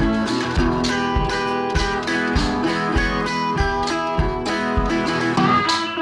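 Guitar-led background music with a steady beat.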